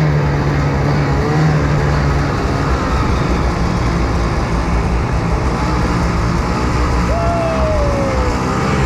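Snowmobile engine running steadily under way, a continuous loud drone with a constant low hum.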